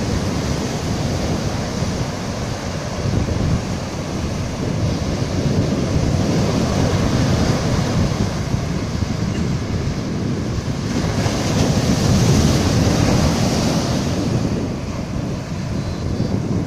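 Surf breaking on a sandy beach, the foamy swash rushing up the sand and draining back as backwash, with wind rumbling on the microphone. The hiss of the wash swells about two-thirds of the way through.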